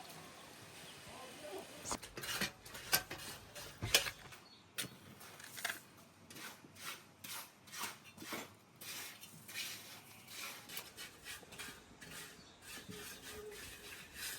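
Repeated clinks and scrapes of kitchen utensils, a few strokes a second, starting about two seconds in.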